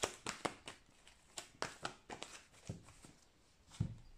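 A deck of oracle cards being shuffled by hand, a run of quick, irregular light clicks, then a soft thump near the end as a card is laid down on the cloth-covered table.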